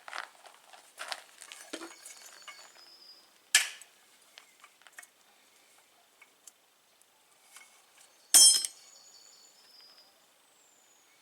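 Metal parts clinking and knocking as they are handled, with two louder sharp clanks, about three and a half and eight seconds in, that ring on briefly.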